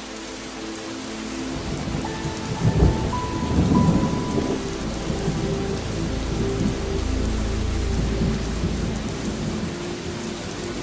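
Steady rain with thunder rolling about three seconds in and rumbling low again later, over soft held tones.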